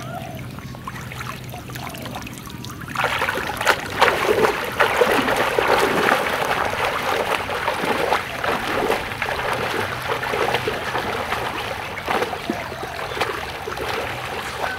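People wading through knee-deep water, legs sloshing and splashing continuously. It starts with small splashes and gets louder and busier about three seconds in, when they begin walking.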